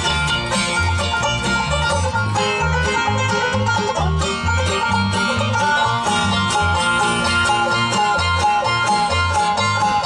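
Live bluegrass band playing an instrumental passage with banjo, mandolin, acoustic guitar and upright bass. The bass keeps an even beat under the dense picking.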